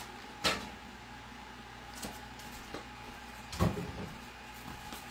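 Two sharp clunks about three seconds apart, with a few lighter clicks between: metal stove parts, the coil burner elements and drip pans of an electric stove, being lifted out and set down.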